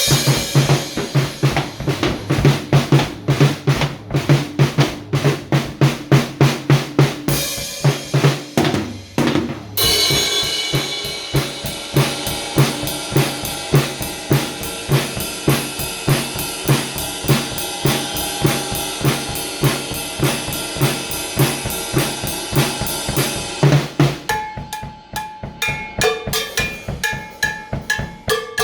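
Music carried by a drum kit playing a steady beat of bass drum and snare. The beat breaks briefly about eight seconds in, and near the end it thins out while pitched notes come forward.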